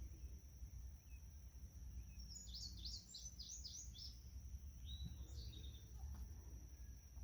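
A songbird sings a short phrase of about six quick, falling notes a little past halfway, followed by a weaker call about a second later. Under it are a steady high-pitched hum and a low outdoor rumble.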